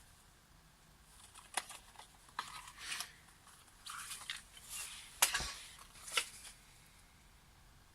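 Plastic cassette tape case being handled and opened: scattered sharp clicks and short crinkly rustles, the sharpest click about five seconds in.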